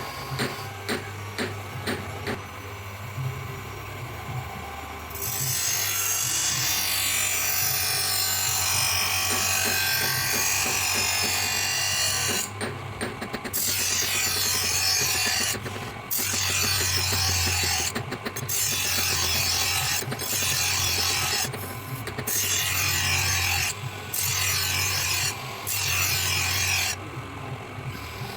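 Steel of an old car leaf spring being ground or filed: a few light clicks, then from about five seconds in a continuous rasping in long strokes of a few seconds each, broken by short pauses.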